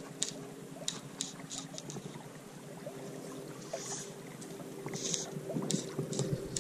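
Quiet river water lapping and trickling around a wading angler, with scattered light clicks and two short hissing swishes about four and five seconds in.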